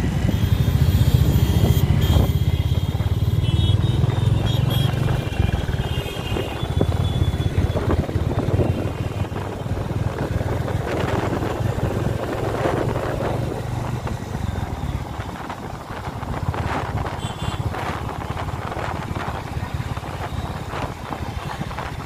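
Motorcycle engine running while riding in city traffic, its low throb strongest in the first half, with road and wind noise and other traffic around.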